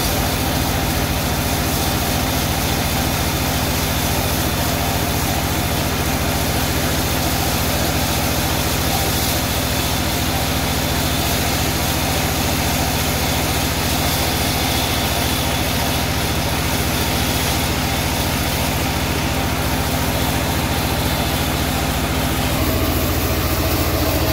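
Engine-driven portable sawmill running steadily, a loud even machine noise with a low engine hum; about 23 seconds in the low hum shifts to a different note.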